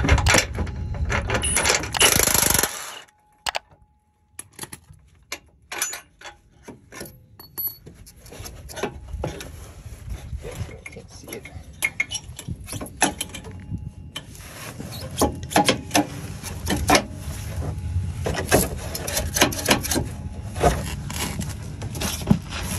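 Hand tools and metal suspension parts clinking and clanking as a control arm is unbolted. A dense stretch of loud noise cuts off abruptly about three seconds in. After a short near-silent moment come scattered sharp metallic clicks and knocks, growing busier toward the end.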